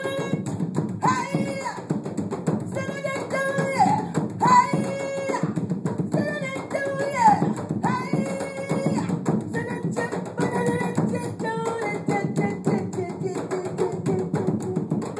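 A group of African hand drums playing a dense, steady groove while a woman sings long held notes over it, some of them sliding down in pitch; the voice drops back in the last few seconds.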